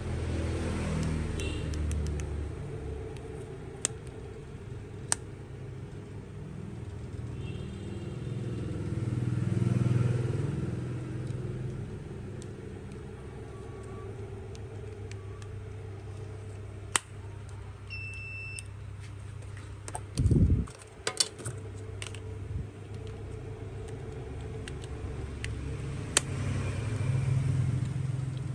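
Low steady rumble that swells and fades three times, with scattered light clicks and taps over it. A short high beep sounds a little past halfway, and a loud low thump follows a couple of seconds later.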